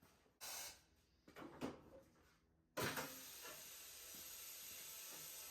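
Compressed air hissing steadily from a tyre being worked on. It starts abruptly about three seconds in, after a few short scrapes and knocks.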